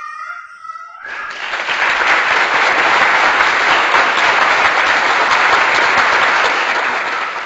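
Loud applause, a dense clatter of many hands clapping, that starts abruptly about a second in and stops abruptly just before the end.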